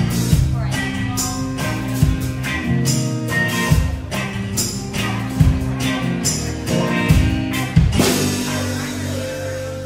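Background music with a drum beat and sustained instrumental notes. The drums drop out about eight seconds in, leaving a held chord.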